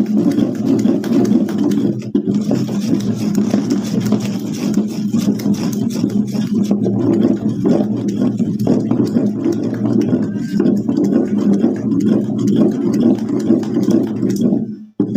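Thick batter of ground urad dal and semolina being beaten continuously by hand with a wooden stick in a large steel basin, a dense rapid churning that stops just before the end.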